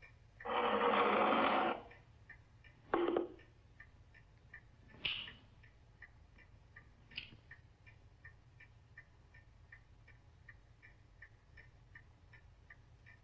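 A clock ticking steadily and quickly. About half a second in, a loud sound lasts just over a second, and shorter sharp sounds come at about three and five seconds.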